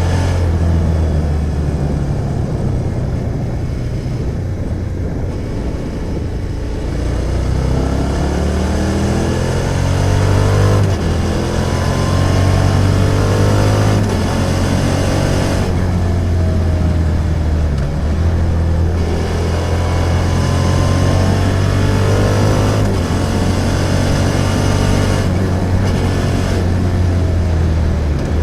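Suzuki SV650 V-twin motorcycle engine under way. Its pitch rises and falls several times as the bike accelerates, shifts and eases off.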